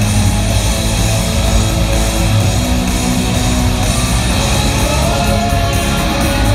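Live rock band playing through a large hall's sound system, heard from the audience: distorted electric guitars, bass and drums.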